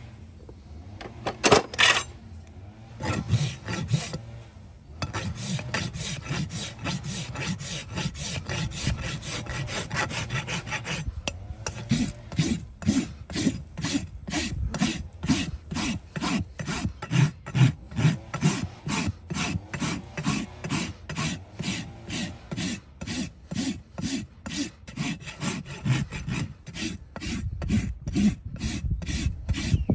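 Hand filing: a file rasped back and forth over a surface. There is a loud single scrape about a second and a half in, then quick, dense strokes. From about eleven seconds in it settles into even strokes, about two a second.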